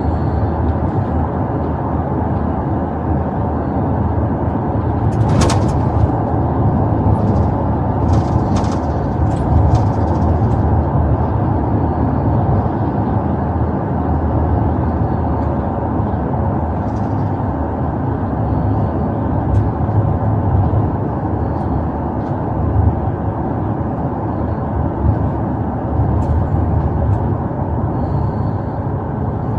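Steady cabin noise inside a police patrol car, a dense low rumble of road and engine noise. A sharp knock comes about five seconds in, and a few lighter clicks follow a few seconds later.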